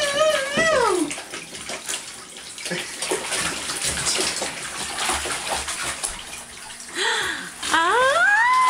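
Bath water splashing and sloshing in a baby's plastic bath seat in a tub, a steady run of small splashes. A high wavering voice calls out in the first second, and near the end a high voice glides up and holds a long note.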